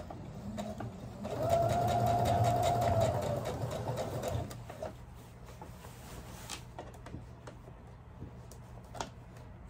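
Brother computerized sewing machine stitching a basting seam at its longest stitch: the motor runs for about three seconds with a steady whine over rapid needle ticking, then stops. A few light clicks follow.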